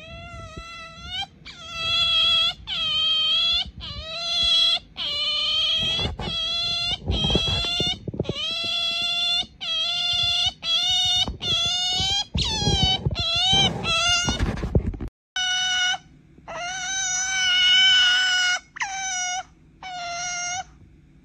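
Pet otter making a long run of high-pitched whining calls, one after another, each under a second, with a short break about two-thirds through before a few more. It is the otter's pleading 'pamper' noise, asking to be petted.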